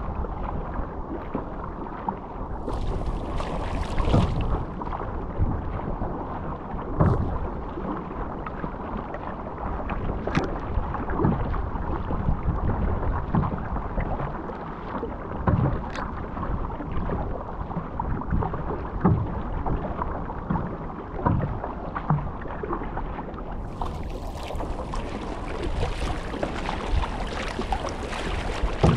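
Surfski paddled on choppy sea: a paddle blade catches and pulls through the water in a steady stroke rhythm, over the constant rush and slap of waves along the hull and wind on the microphone. A brighter splashing hiss comes in briefly early on and again through the last few seconds.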